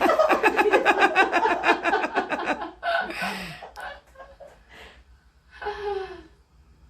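A person laughing in a long run of quick, evenly spaced bursts for almost three seconds, then a breathy outburst and, near the end, a short voiced sound.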